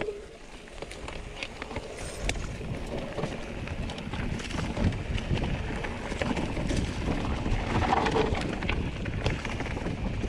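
Mountain bike riding over a rough trail: tyre noise and many small rattles and knocks from the bike, over a steady rush of wind on the microphone, getting louder about two seconds in.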